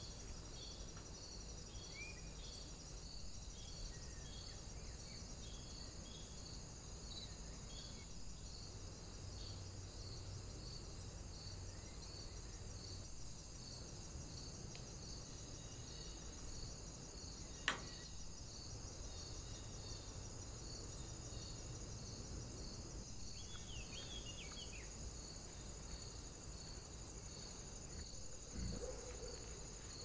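Crickets chirping in a steady, even pulse of about two chirps a second over a continuous shrill trill, with a few faint bird chirps. A single sharp click about 18 seconds in is the loudest sound, and a short low rustle comes near the end.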